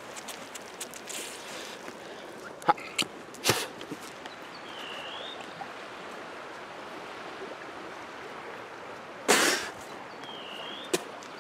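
Steady rush of a flowing river, with two short high chirps, a few faint clicks, and one short loud burst of noise about nine seconds in.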